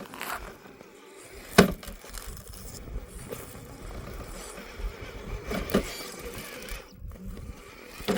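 Axial SCX10 III RC rock crawler climbing over rocks: its electric motor whines steadily while the truck clatters on the stones, with three sharp knocks, the loudest about a second and a half in.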